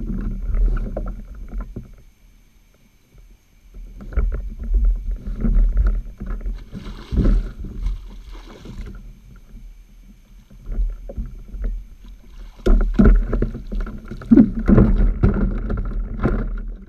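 A hooked flathead being fought in beside a fishing kayak: water splashing as the fish thrashes at the surface midway through, with irregular knocks and bumps against the kayak hull, heaviest near the end.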